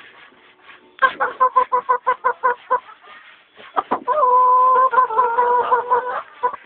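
Gamefowl rooster clucking in a quick run of short calls, then one long crow of about two seconds.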